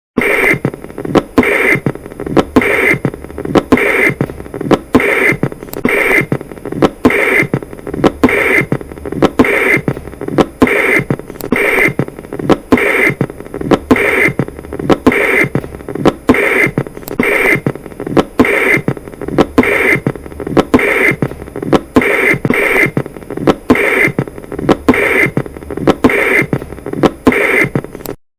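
Heartbeat of a patent ductus arteriosus, about one beat a second, with a continuous whooshing murmur that runs on between the beats without a break. This is the 'machinery' murmur that marks blood shunting from the aorta into the pulmonary artery through the open ductus.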